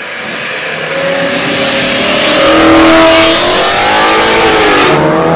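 A car accelerating hard past, its engine note climbing and growing louder to a peak about three seconds in, then falling in pitch as it goes by.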